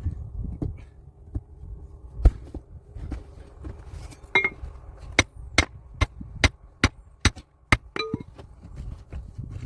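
Hammering on stone: one heavy thump, then a quick run of about eight sharp, ringing knocks at roughly two a second.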